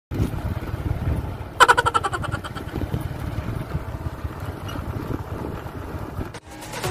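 Motorcycle running while riding along a road, a low, uneven rumble. About a second and a half in, a brief higher buzzing tone pulses for about a second. The sound cuts off suddenly shortly before the end.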